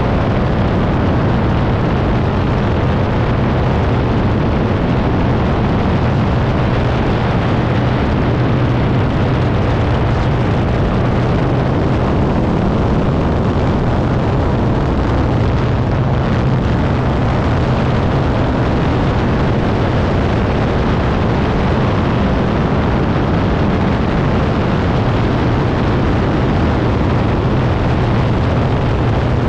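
Single-engine propeller plane's engine and propeller running, heard with heavy wind rush on a camera mounted on the engine cowling. The roar is loud and steady throughout the aerobatic manoeuvres, with a strong low hum underneath.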